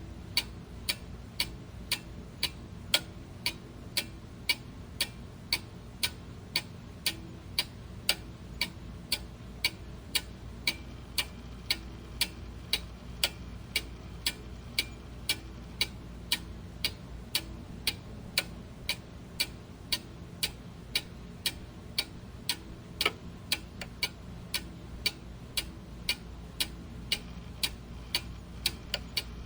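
Clock ticking steadily and evenly, about two ticks a second, over a low, steady background noise.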